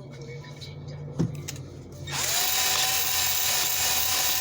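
A single knock, then an electric drill with an abrasive wheel switches on about two seconds in. It spins up with a brief rising whine and then runs steadily with a loud hiss, the wheel scouring rust off a cast iron kettle.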